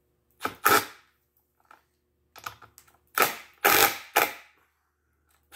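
Sharp clicks and knocks of metal hand-tool work on a threaded clamping rod through glued boards. There are two about half a second in, then a run of irregular strikes between about two and a half and four and a half seconds.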